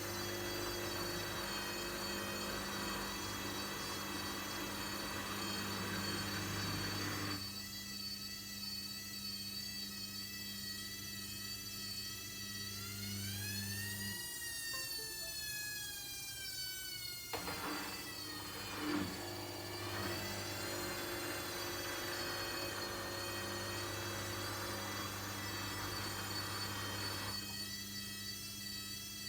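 Logik L712WM23 washing machine running: a steady hum with a hissing rush for the first several seconds. About halfway through, a motor whine rises and then falls away while the hum stops for a few seconds, then the hum starts again.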